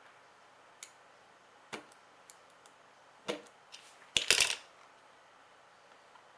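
Small sharp clicks and taps of tools and small parts against an iPhone 4S being reassembled: a few scattered ticks, then a louder quick cluster of clicks about four seconds in.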